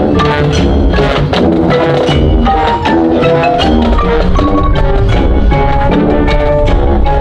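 Marching band playing a busy, percussion-heavy passage: a fast run of short pitched notes with pitched percussion prominent over the band.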